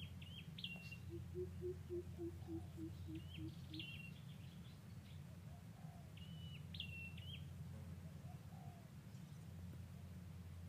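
Birds chirping in short high clusters, three times, with a low note repeated about three times a second from about a second in until about four seconds in, over a steady low hum.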